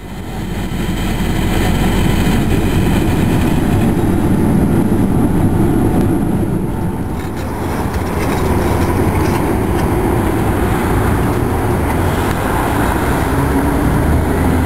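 Konstal 105Na trams running: a steady rumble from inside a moving tram, then trams rolling through a junction on the rails. A city bus engine joins near the end.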